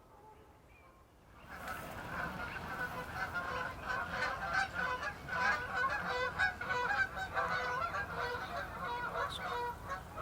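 A flock of geese honking, many calls overlapping in a continuous clamour that breaks in about a second and a half in.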